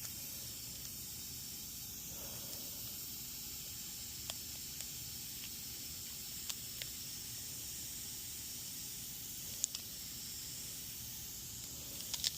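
Steady high hiss, with a few faint clicks and taps now and then.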